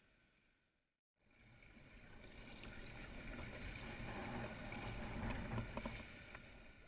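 Kayak paddling on open sea: water swishing and lapping at the kayak's hull with the paddle strokes. It fades in and back out, with a few light clicks about five seconds in.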